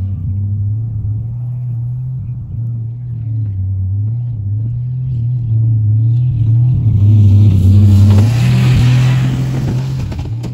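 Minivan engine running on canola oil in place of motor oil as the van drives in reverse, a steady low drone that grows louder about six seconds in, with a rushing hiss over it for a couple of seconds near the end.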